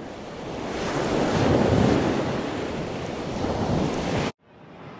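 Strong wind buffeting the microphone outdoors, a rushing noise that swells and falls, cut off abruptly a little past four seconds in, leaving a much quieter steady background.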